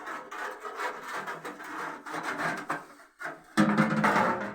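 Rough scraping and rubbing of hard parts being worked and shifted while a wood-burning stove is fitted, in a run of short strokes that grows louder about three and a half seconds in.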